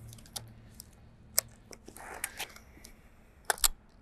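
Scattered sharp clicks and light knocks of a Mamiya 645 Pro medium format camera being handled between shots, with a close pair of louder clicks near the end.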